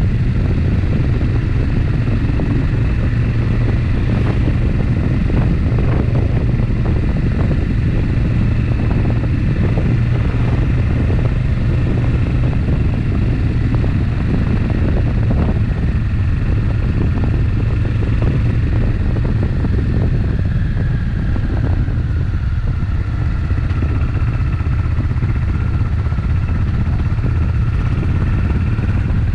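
Suzuki Intruder VS800's V-twin engine running at a steady cruise while riding, with wind and road noise mixed in.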